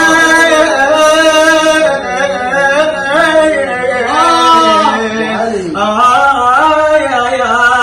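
A male voice singing long wordless 'aah' notes in an ornamented, chant-like melismatic style, the pitch held, wavering and sliding between notes.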